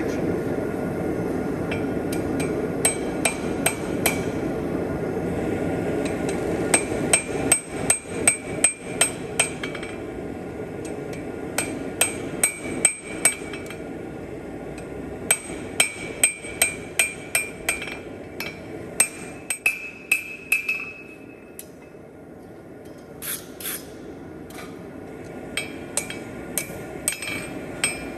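Blacksmith's hand hammer striking steel on an anvil in quick runs of blows with short pauses between them, each strike ringing. A steady rushing noise sits underneath and drops away about ten seconds in.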